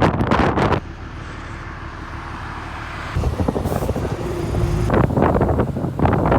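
Bus ride: the engine drones with road noise, and wind gusts buffet the microphone. The sound changes abruptly about a second in, to a quieter, steadier drone with low hums. It grows louder again after about three seconds, and the heavy buffeting returns near the end.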